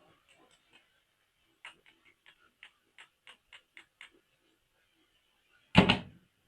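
Handling of toys and packaging: a few faint clicks, then a steady run of about ten small ticks, roughly four a second, then one loud sharp snap or knock near the end that rings out briefly.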